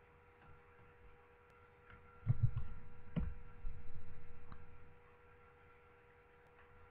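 Steady electrical hum with a faint hiss, broken by a few dull low thumps about two and three seconds in.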